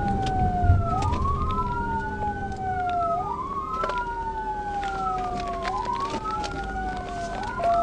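Two police car sirens on wail, out of step with each other, each rising quickly and falling slowly about every two and a half seconds, over a steady low hum and road noise.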